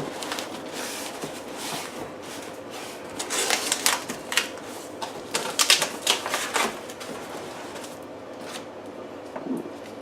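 Cardboard shipping box and its packing handled by hand: an irregular run of rustles, scrapes and sharp clicks, busiest in two spells about three and six seconds in, then sparser.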